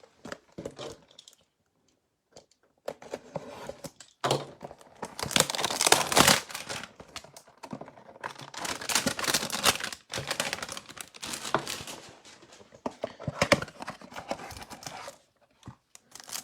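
Trading-card packaging being torn open and crinkled by hand: a few light clicks, then repeated bursts of tearing and rustling as the next Panini Mosaic hanger box is opened.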